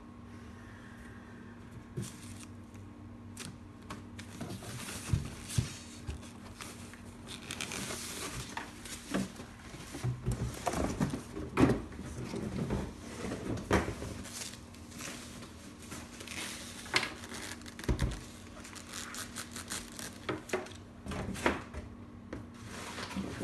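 Packaging being handled: a plastic bag crinkling and cardboard box inserts and flaps being pulled and set down, with scattered knocks and one heavier thump. It starts about four seconds in.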